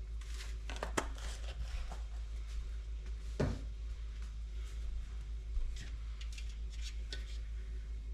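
Kitchen handling sounds: a few light clicks and taps, the clearest about a second in and midway, over a steady low hum.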